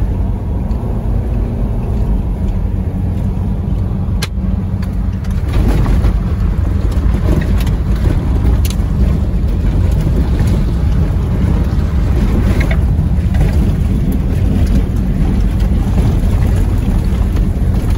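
Steady low rumble of a car driving on a gravel road, engine and tyre noise heard from inside the cabin, with a couple of sharp clicks or rattles, one about four seconds in and another near nine seconds.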